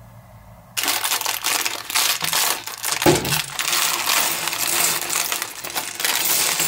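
Clear plastic LEGO parts bag crinkling as it is pulled open by hand, with small plastic bricks clicking and clattering onto the tabletop. It starts abruptly a little under a second in and stays dense with small clicks after that.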